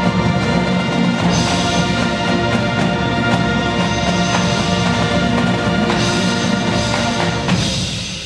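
High school marching band's brass and percussion playing loud, sustained chords with drum strokes, the sound dying away near the end.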